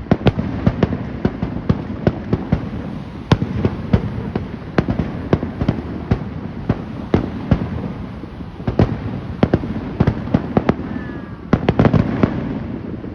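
Fireworks finale barrage: many bangs in quick, uneven succession, with a dense cluster of cracks near the end before the bangs stop.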